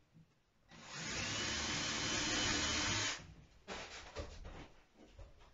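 Cordless drill running steadily for about two and a half seconds with a faint, slightly rising whine, then stopping. A few light knocks and clicks follow.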